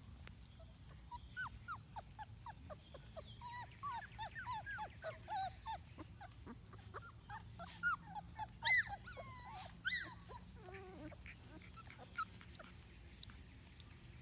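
Four-week-old Labrador puppies whimpering and squealing in short, high, falling cries, several a second, louder and higher-pitched around eight to ten seconds in.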